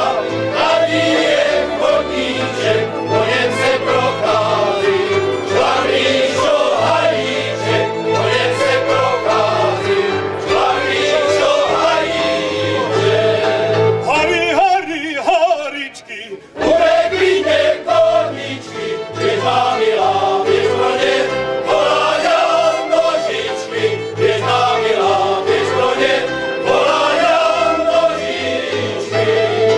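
Men's folk choir singing a Moravian folk song in unison and harmony, with a double bass playing low notes underneath. About halfway through the singing breaks off briefly, then the next verse starts.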